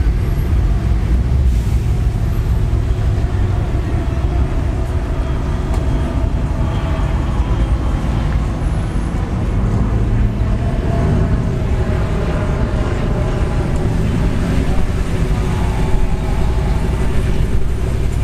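Car and truck engines running in slow, backed-up traffic: a steady low rumble, with faint voices in the background.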